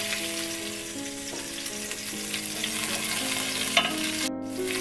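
Cumin seeds and green chilies sizzling in hot oil in a pot, a steady frying hiss with a few sharp pops. The sizzle cuts out for a moment near the end, then resumes.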